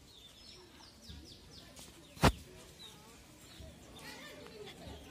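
Small birds chirping repeatedly in the background, with one sharp knock about two seconds in.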